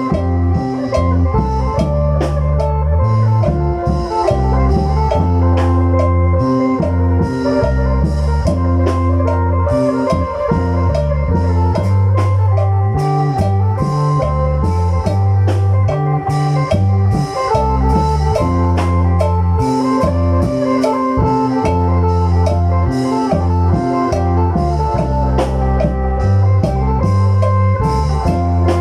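Isan lam phloen music: a phin, the plucked Isan lute, plays a busy melody over a stepping bass line and steady drums.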